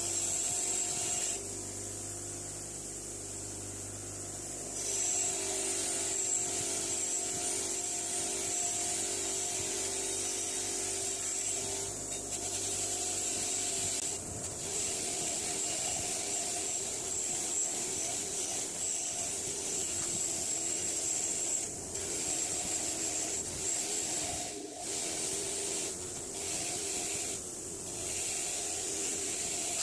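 Motor-driven wire wheel running steadily with an old Stillson pipe wrench pressed against it, the wire bristles scratching the metal clean. The scratching shifts in tone as the wrench is moved about and eases off briefly several times in the second half.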